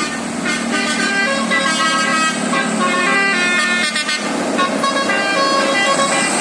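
Bus telolet basuri horn playing a quick tune of short, steady notes that jump from pitch to pitch.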